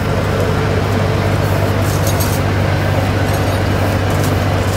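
Combine harvester's diesel engine running with a steady low drone, with a few light metallic clinks over it.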